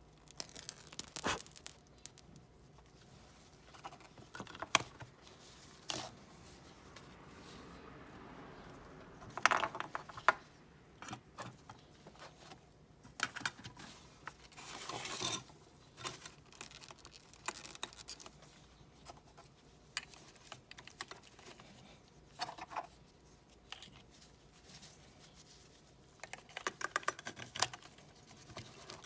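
Intermittent handling noises: scattered scraping, tearing and clicking sounds in short clusters, with a few sharper knocks.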